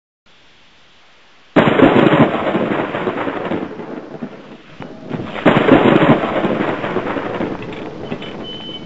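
Modified Radio Shack 12-469 radio used as a ghost box, giving out loud radio static. The static surges in suddenly about a second and a half in and again about five and a half seconds in, each surge fading off. A brief thin steady tone sounds near the end.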